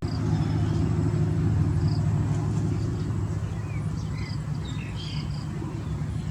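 Steady low mechanical hum, like an engine running, with a few faint high chirps scattered through it.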